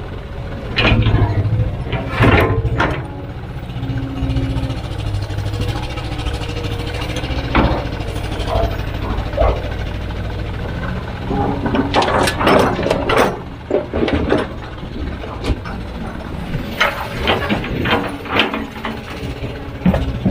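Heavy machine's diesel engine running steadily under repeated clanks and knocks, the densest cluster about twelve to thirteen seconds in.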